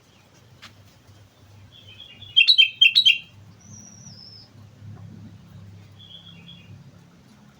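Sooty-headed bulbul (kutilang) singing. A loud burst of quick chirping notes comes about two to three seconds in, followed by a thin, higher drawn-out note and, near six seconds, a short softer phrase, over a faint low hum.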